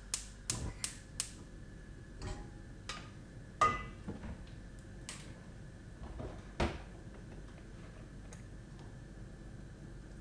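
Gas hob's spark igniter clicking rapidly, about three clicks a second for a second or so, as the burner is lit. Then a few separate knocks and clatters from a wooden spoon and the stainless steel pot being handled, the loudest a bit over three seconds in with a short metallic ring.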